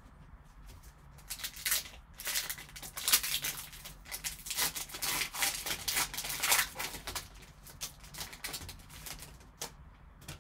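A trading-card pack's wrapper being torn open and crinkled in gloved hands: dense crackling and rustling that starts about a second in and dies down after about seven seconds, with one last crackle near the end.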